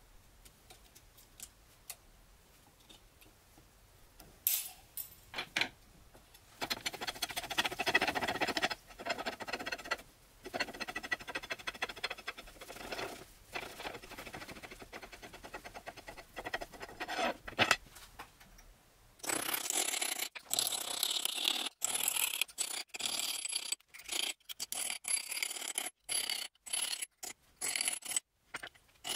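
Irregular workshop noise of tools scraping and rubbing on parts, with a few knocks, coming in short spells. About two-thirds of the way through the sound changes abruptly to a thinner, choppier scraping with frequent short breaks.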